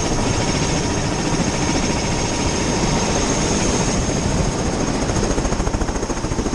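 Helicopter running on the ground at close range with its rotor turning overhead: a steady high turbine whine over a dense wash of rotor noise, which turns more pulsing toward the end.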